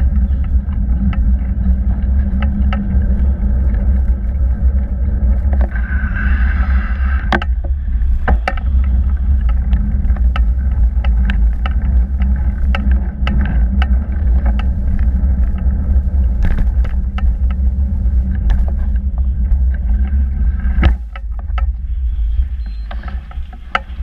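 Steady low rumble of wind and tyre noise on a camera mounted on a moving bicycle, with frequent clicks and rattles from the bike and mount over bumps. About 21 seconds in there is a sharp knock, and it goes quieter after it.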